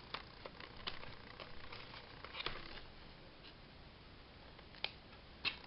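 Faint sounds of paper and card being handled on a craft table: scattered light ticks and soft rustles, with a sharp tick near the end.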